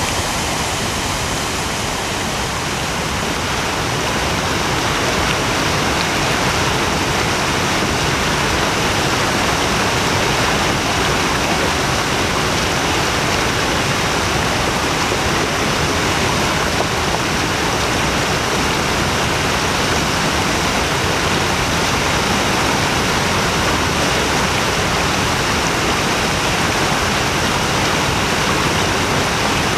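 Floodwater rushing through a swollen creek and over rocks as whitewater: a steady, loud roar of water that grows a little louder about four seconds in.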